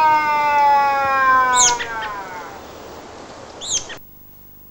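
Film sound effects: a long electronic tone sliding slowly down in pitch, with two short high bird-like chirps over it. The sound cuts off suddenly about four seconds in, leaving only faint hum.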